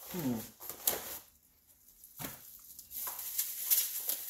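Rustling and crinkling of a padded paper mailer and the clear plastic bag inside it as the envelope is cut open with scissors and the item is pulled out, with denser crinkling from about three seconds in. A short falling, voice-like tone sounds right at the start.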